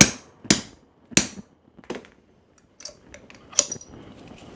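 Hammer striking a spring-loaded hammer-type lug crimper that rests on a dumbbell: three sharp metal blows in the first second and a half, crimping a copper lug onto a battery cable. Fainter knocks and a brief metallic clink follow as the tools are handled.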